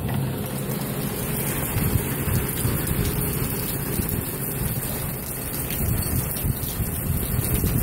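Heavy rain pouring down in a steady rush, with a low rumble of wind on the microphone.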